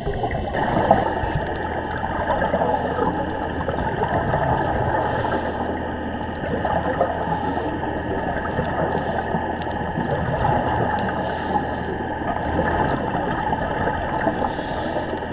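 Underwater ambience: steady muffled rushing and gurgling water noise with a faint low hum running through it.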